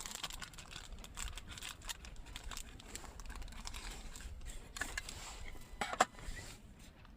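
Plastic film wrapper of a convenience-store rice ball (onigiri) crinkling and crackling as it is unwrapped, with scattered small clicks and a sharper click about six seconds in.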